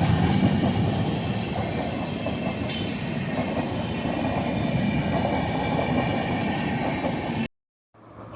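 Express train passing close by, with a steady rumble and clatter of wheels on the track. A brief high squeal comes about three seconds in. The sound cuts off suddenly near the end.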